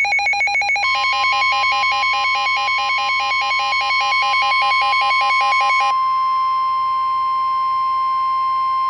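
Emergency alert tones: a rapidly pulsing electronic beeping, joined about a second in by a steady single-pitch warning alarm tone like the weather-radio warning tone. The pulsing stops about six seconds in, leaving the steady alarm tone sounding alone.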